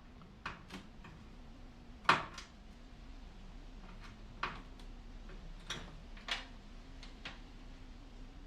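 Irregular clicks and knocks of hand tools working on a microwave oven's casing and parts during a teardown by hand, about eight in all, the loudest about two seconds in.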